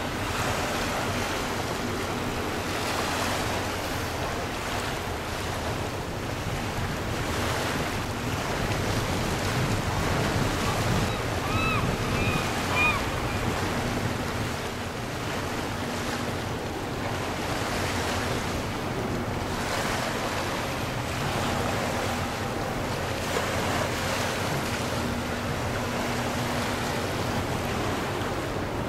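Wind on the microphone and water washing at the shoreline, with a faint steady low drone from the approaching Super-class ferry ELWHA.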